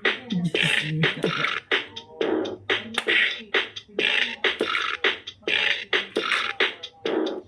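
Bop It! Refresh toy playing its beatboxed game beat through its small speaker, a steady rhythm of about two hits a second, as a round is played.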